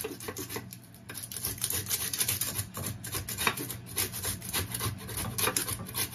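Dried avocado seed being grated on a red plastic hand grater: quick, repeated scraping strokes, with a short pause about a second in.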